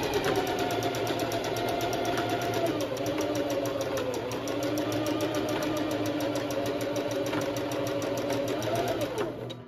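Electric sewing machine running steadily at speed, zigzag-stitching coiled cotton clothesline rope: a rapid, even needle rhythm over a motor hum whose pitch shifts slightly. It stops near the end.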